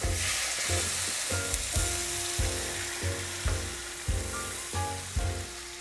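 Stock poured into a hot stainless-steel sauté pan of sautéed tomato and garlic, sizzling on contact. The sizzle is strongest at first and slowly dies down as the liquid cools the pan.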